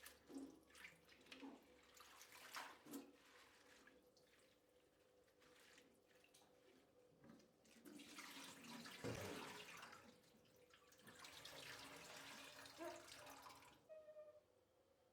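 Kitchen tap running water in two stretches, a couple of seconds each, after a few light knocks of kitchen utensils.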